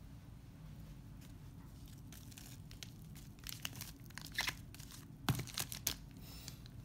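Sealed 1991 Donruss wax-paper card packs crinkling and clicking against each other as a handful is shuffled and stacked, after a few seconds of faint room hum; the sharpest clicks come about five seconds in.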